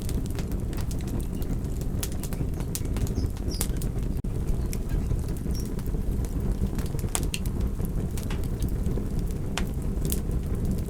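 Wood fire burning in a fireplace: a steady low rush of flame with irregular sharp crackles and pops.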